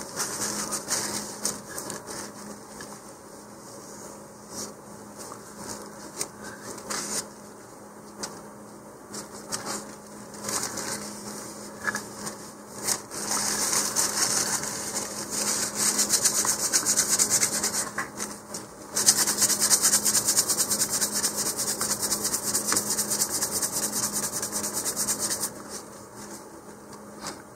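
Tissue rubbing over a model rocket body tube, wiping away excess glue squeezed out at the coupler joint. Uneven rubbing at first, then fast steady back-and-forth strokes from about two-thirds of the way in until shortly before the end.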